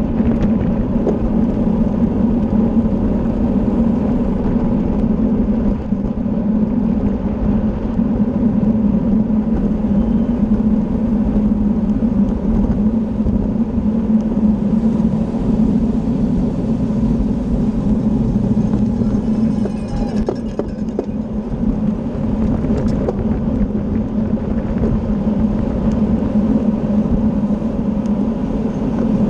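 Steady wind rush and road noise from a racing bicycle at speed, buffeting the rider's own camera microphone, with a constant low hum.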